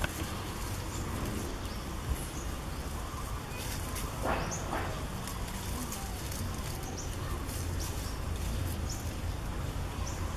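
Outdoor woodland ambience: a steady low rumble with scattered short, high bird chirps. A brief louder sound comes about four seconds in.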